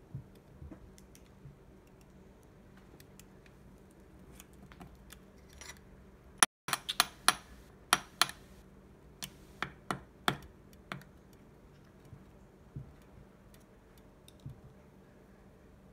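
Light, sharp taps and clicks of a hard container being handled, most plausibly the test tube of live ants being tapped to shake them out into the gel ant farm. A few scattered clicks come first, then a quick run of about a dozen louder taps near the middle, then a couple more further apart.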